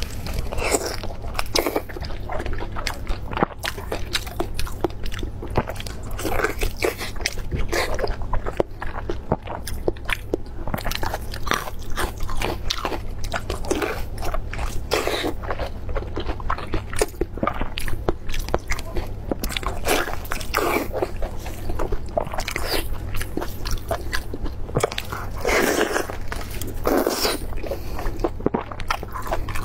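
Close-miked biting and chewing of a large Chinese blood sausage (xuechang) in a stuffed pork casing, in quick irregular mouthfuls throughout, over a steady low hum.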